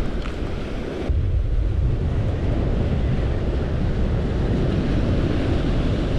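Wind buffeting the microphone over surf washing against the rocks, a steady rushing noise; the wind rumble gets stronger about a second in.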